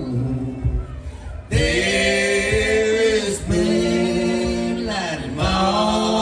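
Close three-part vocal harmony of men's and a woman's voices singing a cappella over a stage PA. Long held chords are parted by short breaths between phrases.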